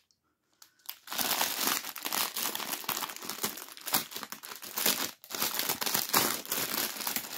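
Clear plastic bag full of small packets of diamond-painting drills crinkling and rustling as it is handled, starting about a second in after near silence.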